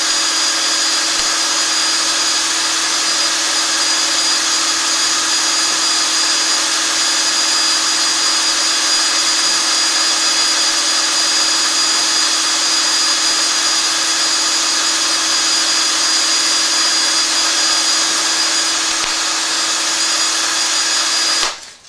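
Electric drill running at a steady speed, turning a Lego-built cue lathe with a constant whine, while very fine sandpaper is held to the spinning cue shaft. The drill stops suddenly near the end.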